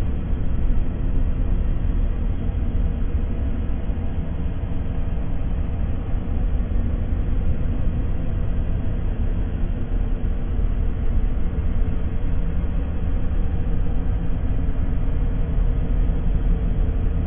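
Sci-fi 'space planet' ambience sound effect: a steady, deep rumbling drone with faint humming tones, even in level throughout.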